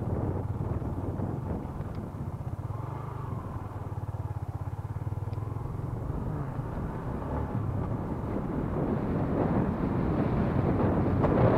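Yamaha Exciter 150's single-cylinder four-stroke engine running steadily as the motorcycle rides along a rough dirt track. A rushing noise, typical of wind on a helmet-mounted microphone, grows louder over the last few seconds.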